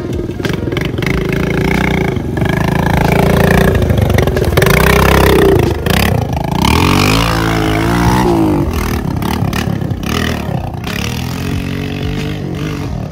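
Small dirt bike engine revving up and down as the bike is ridden across dirt, its pitch climbing and dropping several times.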